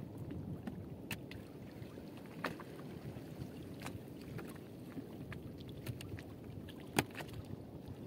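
Steady low wash of wind and water around a small fishing boat, with scattered sharp knocks and clicks as a fishing net is hauled in by hand over the side; the loudest knock comes near the end.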